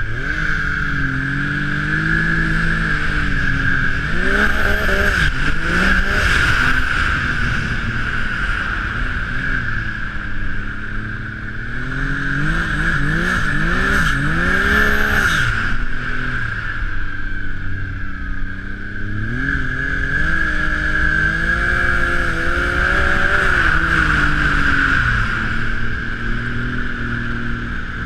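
Turbocharged Ski-Doo snowmobile engine under way, revving up and falling back in repeated surges, with a steady high whine throughout.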